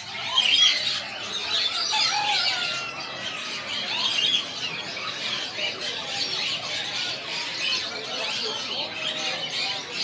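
A dense chorus of many caged birds chirping and squawking at once, with overlapping high, short chirps and squeals and no break.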